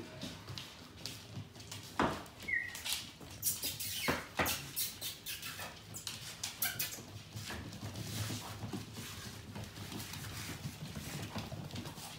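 Welsh springer spaniel puppies and an adult dog scampering on a hard tiled floor: a busy patter of claw clicks and paw taps, densest in the first half, with two short high squeaks.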